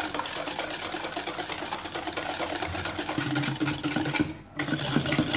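Wire whisk beating egg yolks and sugar by hand in a stainless steel bowl: a fast, steady clatter of the wires against the metal, with a brief pause about four and a half seconds in. The yolks are being whipped until pale and frothy for pastry cream.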